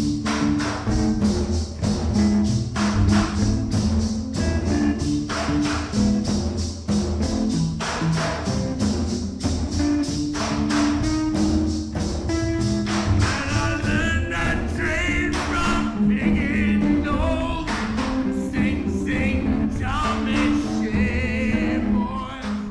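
Music with a steady, fast percussive beat over low bass notes; a high wavering melody joins in about halfway through, and the music drops away at the very end.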